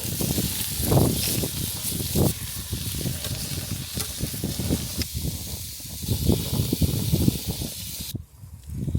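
Gusty wind buffeting the microphone, an uneven rumble over a steady hiss, dropping away briefly near the end.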